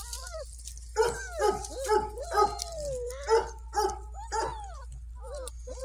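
German Shepherd puppies yelping: a run of short, high yips, two or three a second, with one longer wavering whine about three seconds in.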